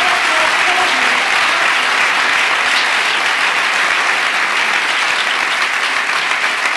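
Audience applauding steadily, dense clapping throughout.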